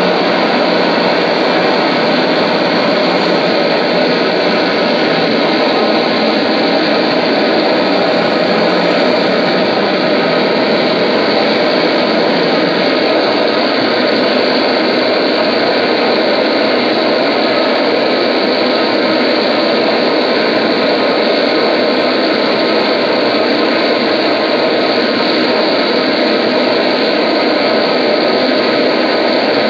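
Loud, unbroken drone of distorted electric guitar noise through an amplifier and effects, a dense wall of sound that never pauses and has no beat or melody.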